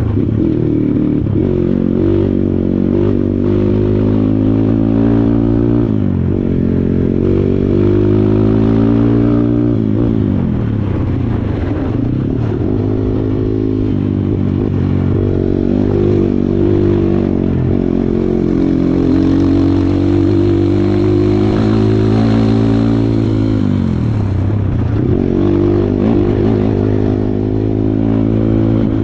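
Kawasaki KLX140 dirt bike's single-cylinder four-stroke engine pulling under load on a trail, revs repeatedly climbing and then dropping off, with sharp drops about six, ten and twenty-four seconds in.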